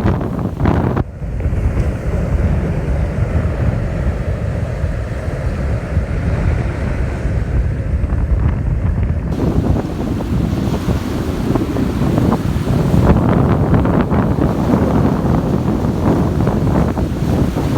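Strong wind buffeting the microphone in a continuous low rumble, over the hiss of surf breaking on the beach.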